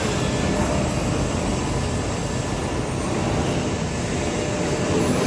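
Steady drone of industrial machinery, an even noise with a faint steady whine and no strokes or impacts.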